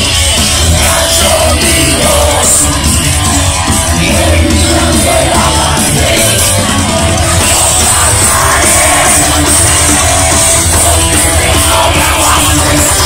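A live rock band playing loud, with electric guitars, drums and vocals, heard from amid the crowd.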